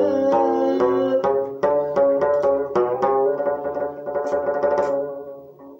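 A plucked string instrument playing a short instrumental phrase of quick single notes, fading out near the end.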